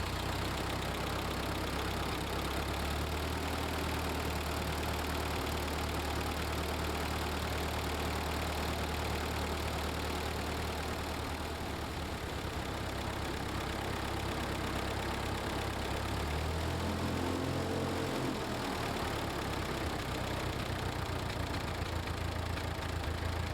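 Ford 8N tractor's four-cylinder flathead engine idling steadily just after starting, running to circulate fresh oil after an oil change. Its pitch rises briefly about three-quarters of the way through, then settles back to idle.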